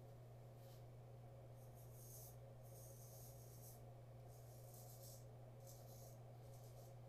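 A 7/8-inch near-wedge straight razor scraping through lather on a shaved scalp in about six short, faint strokes, over a steady low hum.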